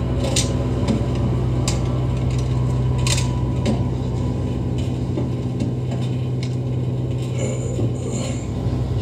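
Propeller aircraft engines droning steadily, heard from inside the cockpit, with about half a dozen sharp metallic clicks and rattles a second or so apart.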